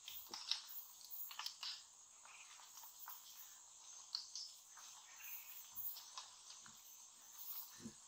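Tropical rainforest ambience: a faint, steady chorus of insects with scattered short chirps and clicks, likely from birds.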